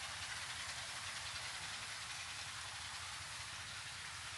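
Steady outdoor background noise: an even hiss with a low, fluttering rumble beneath it, with no distinct events.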